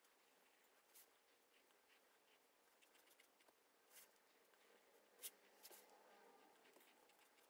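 Near silence with faint scratching of a pen drawing on grid paper, and a few soft clicks.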